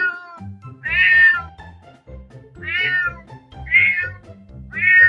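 Domestic cat meowing repeatedly: the end of one meow, then four short meows about a second apart, each rising and then falling in pitch, over soft background music.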